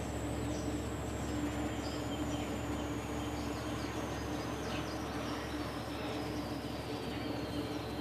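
Steady background hum and noise, with a thin high whine slowly falling in pitch and a few faint chirps of birds.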